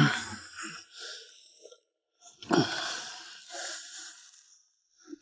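Two heavy, strained breaths from an angler fighting a hooked fish on a long pole, one at the start and one about two and a half seconds later, each fading away.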